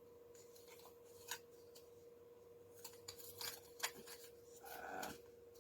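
Faint clicks and rubbing of camera stabilizer and microphone parts being handled and fitted together, over a faint steady hum.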